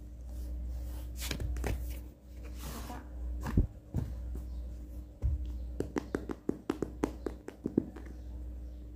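Hands handling a cardboard eyeshadow palette box: a sliding rub and a few knocks, then a quick run of light taps, about five or six a second for a couple of seconds, as fingers tap on the cardboard. A low rumble of handling noise runs underneath.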